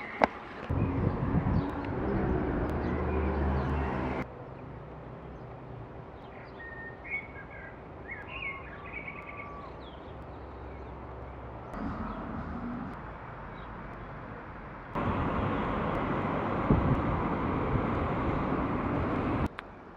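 Outdoor ambience in several short pieces joined by abrupt cuts: a low rumble and steady noise at the start and again near the end, with a quieter stretch in the middle where small birds chirp.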